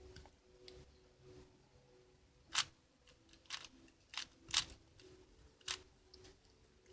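Plastic Rubik's cube being turned by hand, its layers clicking sharply about six times at irregular intervals.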